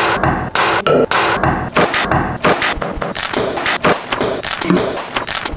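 A rapid, irregular run of knocks and thumps, about three or four a second, some overlapping.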